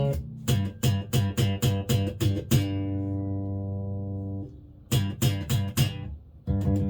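Hammer five-string mini electric bass played through a Warwick BC10 bass amp. First a quick run of sharply attacked notes, about four a second, then one note held for about two seconds, then another short run of notes near the end.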